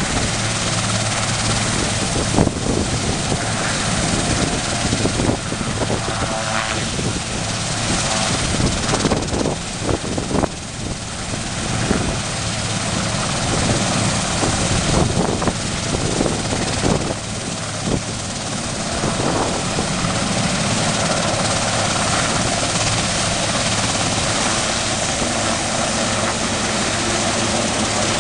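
Sikorsky S-61 twin-turbine helicopter hovering low over water: a steady, loud rotor and turbine noise with a continuous hiss of rotor downwash.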